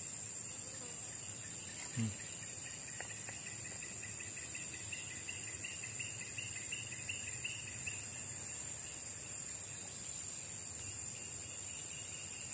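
Insects trilling steadily at a high pitch, with a lower pulsing chirp joining for a few seconds midway. A brief low bump about two seconds in.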